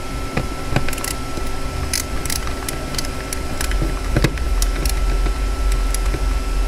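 Precision screwdriver working a small screw that won't come out of the hotspot's circuit board: scattered clicks and scrapes of the bit against the screw and the metal case, over a steady hum.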